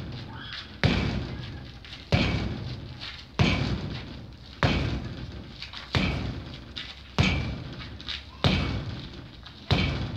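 Punches striking a padded makiwara board strapped to steel scaffold poles: eight heavy thuds about a second and a quarter apart, each ringing on and fading for about a second.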